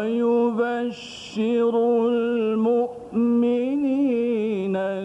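A man reciting the Quran in the drawn-out melodic competition style, holding long ornamented notes in three phrases, with short breaths about a second in and about three seconds in.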